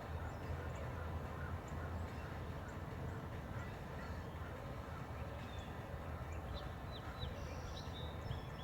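Faint steady low hum with birds chirping, a few short chirps spread through and a cluster of quick chirps near the end.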